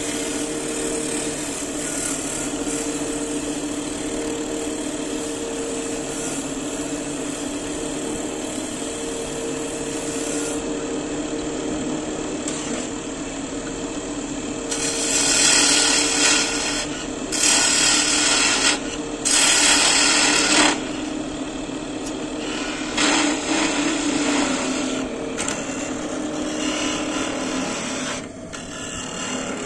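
Electric woodworking machine running with a steady hum. About halfway through it cuts into wood in several loud, hissy bursts of a second or two each, with lighter cuts after.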